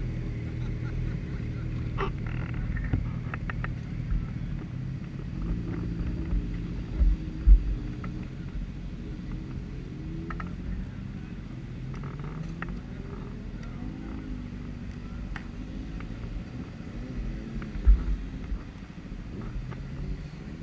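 Yamaha YZF-R1's inline-four engine idling, its pitch drifting slightly up and down, with a few low thumps, the loudest about seven and eighteen seconds in.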